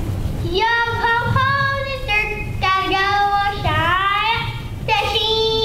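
Young children singing a song on stage, a few sustained notes with a rising swoop about midway and a long held note near the end.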